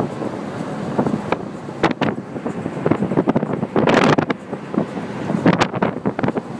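Wind buffeting the microphone in a Lamborghini Gallardo convertible driving at speed, an uneven rush with irregular thumps and a stronger gust about four seconds in.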